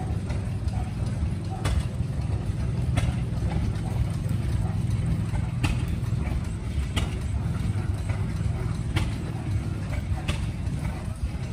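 Old stationary engines running: a low steady chugging with sharp exhaust cracks every one to two seconds.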